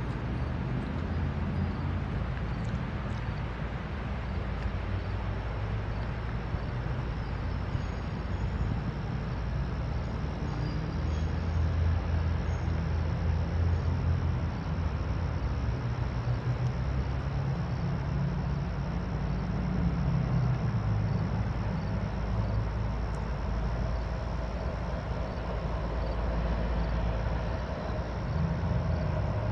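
Steady low engine rumble whose pitch and level shift and swell several times, over an even hiss.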